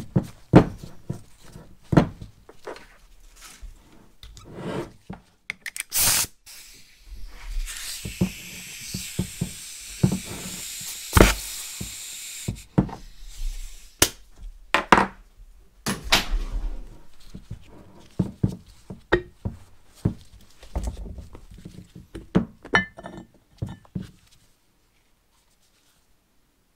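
Compressed air hissing into a rusty brake caliper's bore for a few seconds, ending with a thud as the piston is forced out into a wrapped rag. Knocks and clunks come before and after as the caliper and rag are handled.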